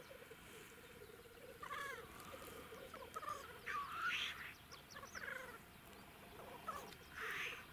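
Black grouse lekking: the males' low, rhythmic bubbling coo runs underneath, broken by repeated loud hissing sneeze calls, the strongest about four seconds in and again near the end.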